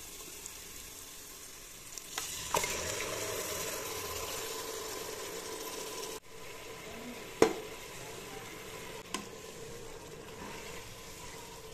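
Marinated mutton and fried onions sizzling in oil in a pressure cooker while a spatula stirs them, scraping and knocking on the pot: the first stage of browning the meat. The sizzle picks up about two seconds in, with sharp knocks at about two and a half and seven and a half seconds.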